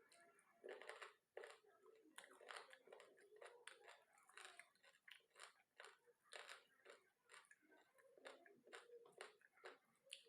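Close-up chewing of a mouthful of food, with many irregular wet and crunchy bites.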